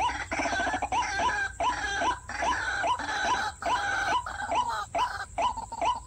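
White-breasted waterhen calling: a fast, repeated string of short notes, each sweeping up and then holding, about two to three a second, with more overlapping calls between them.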